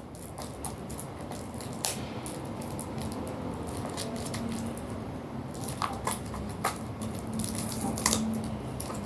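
Perfume box and bottle being handled during an unboxing: scattered light clicks and taps of packaging, clustering around two seconds in, six seconds in and near the end.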